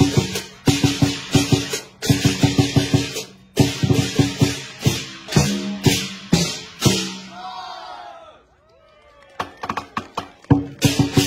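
Lion dance percussion: a large painted lion dance drum beaten in a fast driving rhythm together with clashing hand cymbals. About eight seconds in, the playing breaks off and the cymbals ring out and fade. A few quick strikes follow, then the full drum-and-cymbal rhythm starts again near the end.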